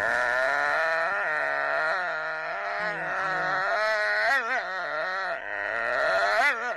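Siberian husky "talking": one long, unbroken howl-like vocalisation that wavers up and down in pitch, with quick warbles about four seconds in and again near the end.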